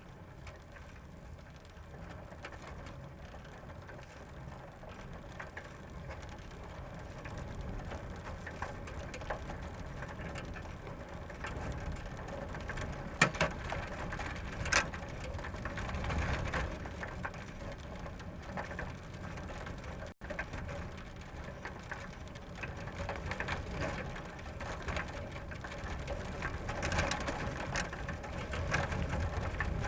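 Bicycle being ridden: a steady rolling rumble with the fine mechanical ticking of the chain and freewheel. There are a couple of sharp clicks about halfway through and a momentary drop-out a little later, and the sound grows gradually louder.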